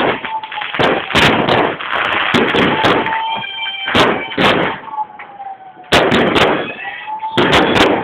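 Firecrackers and fireworks going off in a dense, irregular barrage of sharp bangs, easing briefly past the middle before a fresh burst of bangs.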